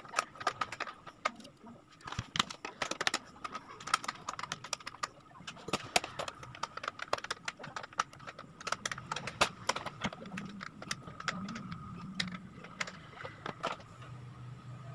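Irregular small metallic clicks and clinks as hands work the nuts and bolts at the transformer's mounting on a metal amplifier chassis, over a faint steady high whine.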